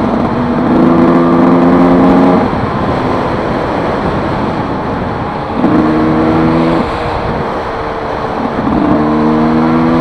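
Two-stroke motocross bike ridden fast on a gravel road, heard through wind rush on a helmet microphone. The engine note rises to a steady high-revving pitch three times: about a second in, around six seconds, and near the end. Between these it sinks into the rumble of wind and tyres.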